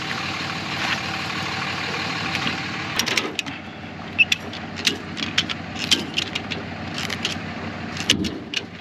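A vehicle engine idling steadily, with a run of irregular sharp clicks and knocks starting about three seconds in.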